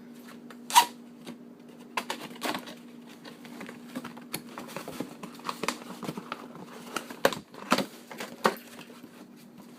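Cardboard product box being opened by hand: irregular clicks, scrapes and rustles of the flaps and packaging, with one loud knock about a second in. A steady low hum runs underneath.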